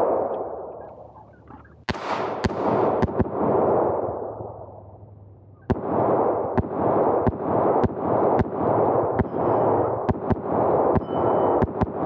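Smith & Wesson M&P 9 2.0 Performance Center 9mm pistol firing 115-grain full metal jacket target rounds: a single shot about two seconds in and a couple more soon after, then from about halfway a fast string of shots, two to three a second. Each shot leaves a long echoing tail.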